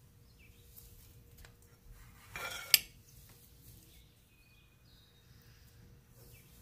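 A slice of food being set down on a plate: a brief scrape about two seconds in, ending in one sharp clink of a utensil against the plate.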